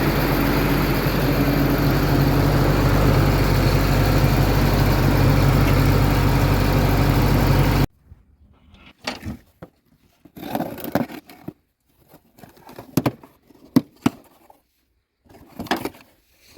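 Caterpillar diesel engine idling steadily. The engine sound stops abruptly about eight seconds in, and after that there are only scattered knocks and clicks.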